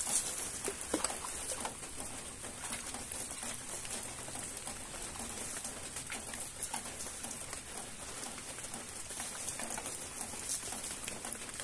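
Steady patter of light rain, with water splashing onto the ground as greens are rinsed under water poured from a small pot, loudest at the very start.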